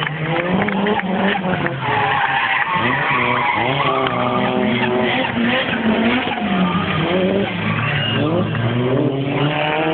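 Cars drifting and spinning in circles, tyres squealing in wavering tones that rise and fall over the steady low running and revving of the engines.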